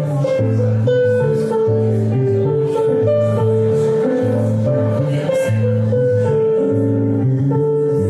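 Electronic keyboard and electric bass guitar playing an instrumental duo: the bass holds long low notes under a keyboard melody of held notes that moves step by step.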